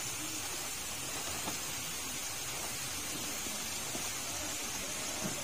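Steady hiss of flowing water, even and unbroken.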